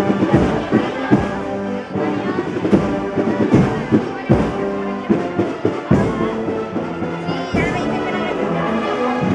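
A brass band with drums playing a processional march: held brass chords over drum strokes.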